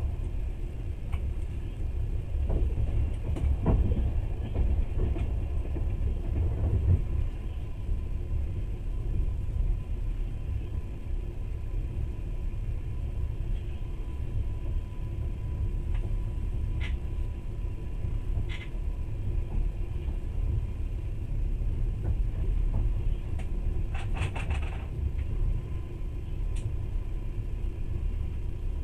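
Passenger train running, heard from inside the carriage: a steady low rumble, with scattered knocks in the first few seconds and a quick rattle of clicks late on.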